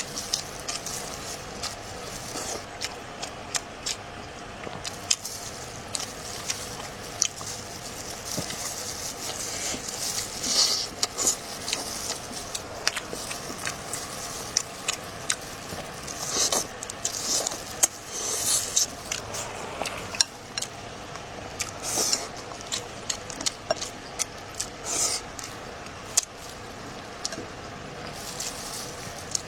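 Close-miked eating sounds: chewing and mouth noises, with many sharp clicks and short, wet, hissing bursts at irregular intervals.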